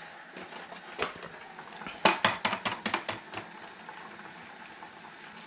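An egg being knocked against a bowl to crack it, with a fork clinking against the bowl: a single click about a second in, then a run of sharp taps and clicks from about two to three and a half seconds in, over a faint steady hiss.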